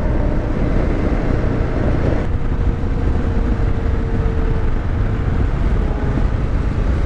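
VOGE 300 Rally motorcycle riding along at road speed: its single-cylinder engine running under a steady rumble of wind on the helmet microphone.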